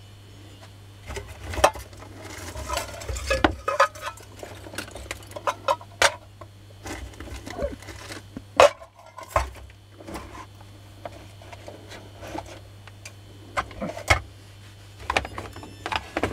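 Parts of a dismantled angle grinder and a metal tin being handled on a workbench: irregular clicks, knocks and small metallic rattles, over a steady low hum.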